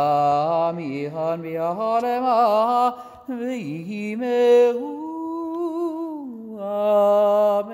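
A lone male cantor chanting a melismatic High Holiday prayer melody without clear words. The voice wavers and slides between notes and ends on long held tones.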